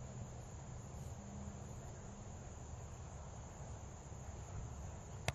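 Steady high-pitched insect chorus over a low rumble of wind on the microphone. A single sharp slap or click comes near the end.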